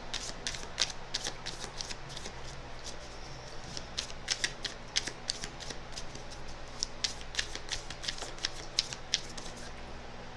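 A deck of tarot cards being shuffled and handled: quick, irregular card snaps and clicks in clusters of several a second.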